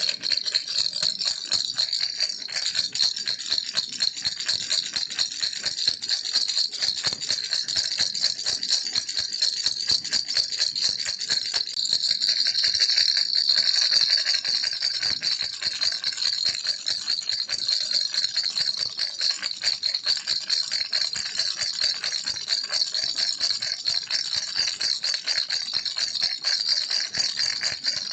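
Baby rattle toy shaken without pause, a dense stream of bright little clicks that swells slightly louder about halfway through.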